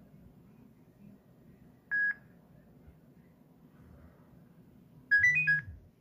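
Nokia 6016i phone's monophonic beeps: a single short beep about two seconds in, then near the end a quick run of four beeps, stepping up in pitch and dropping back, as the incoming call starts ringing. A short low buzz sounds under the run.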